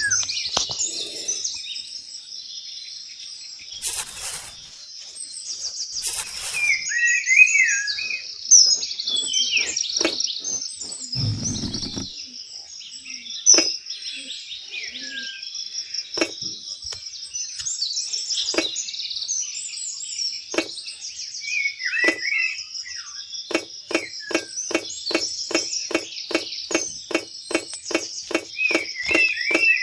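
Small birds chirping over a steady high hiss, with scattered taps and clicks; in the last few seconds, a steady run of light taps comes about three and a half times a second.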